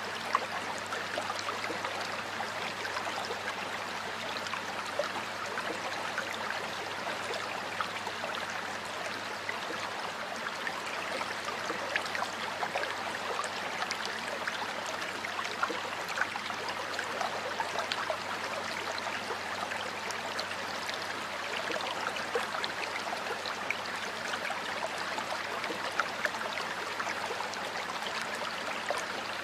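Stream water flowing steadily, with a constant rush and many small splashes and gurgles.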